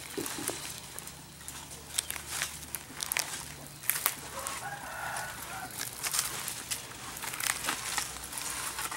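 Chickens calling in the background, with scattered short clicks and rustles.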